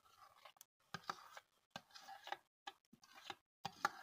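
Faint scattered clicks and ticks as semolina is tipped from a bowl into a pot of melted, caramelised sugar, a few more of them near the end.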